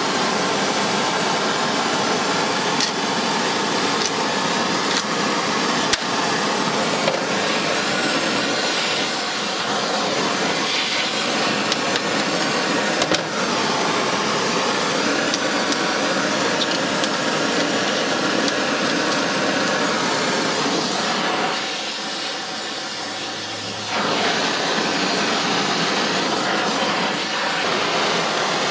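Gas torch flame hissing steadily as it heats a steel flywheel rotor. The hiss drops to a quieter level for about two seconds near the end, then comes back.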